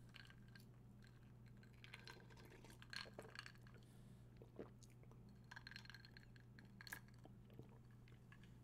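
Faint sounds of someone drinking from a glass of iced drink: a few small clinks of ice against the glass, with sips and swallows, over a low steady hum.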